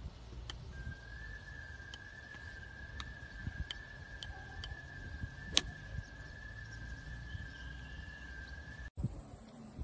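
Golf ball bouncing on the face of an iron, a run of light clicks a second or less apart, then a sharper, louder click of the ball being struck about five and a half seconds in. A steady high-pitched tone runs beneath from about a second in until the sound cuts off near the end.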